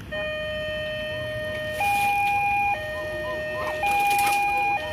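Railway level-crossing warning alarm sounding as the barriers close for an approaching train. It is an electronic two-tone signal that alternates between a lower and a higher tone, each held about a second.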